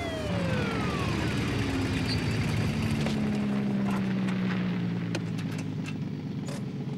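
A police motorcycle's siren winds down, its pitch falling steadily over about a second and a half. A low engine then idles steadily as the car and motorcycle sit stopped.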